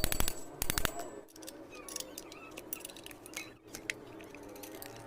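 Metal clinks and clicks of spanner work on a Yamaha NMAX's rear CVT pulley, a quick cluster of sharp clinks in the first second, then scattered lighter clicks.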